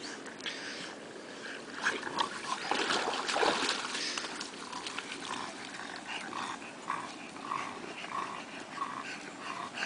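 Dog panting in a steady rhythm, about one and a half breaths a second, through the second half. Before that, a louder stretch of noise about three seconds in.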